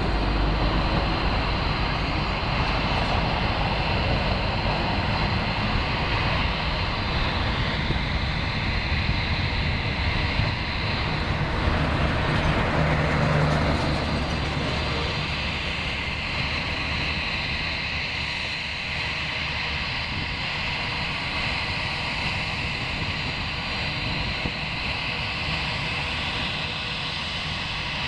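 Jet airliner engines running, a steady rushing noise with a high whine, loudest about halfway through and then slowly fading as the aircraft moves away.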